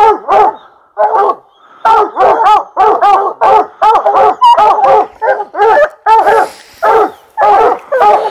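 A pack of lion-hunting dogs barking hard and without let-up, about two barks a second after a brief lull about a second in. The dogs are baying a mountain lion they have treed.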